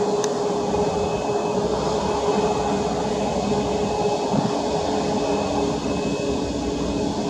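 Boeing 737 MAX 8's CFM LEAP-1B jet engines running steadily on the ground at low power, a continuous rumble with a steady whine.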